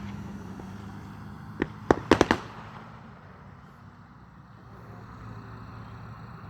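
Nine-shot consumer fireworks cake of yellow mines and purple crossette comets firing. About five sharp bangs come close together about two seconds in, then a low rumble fades out.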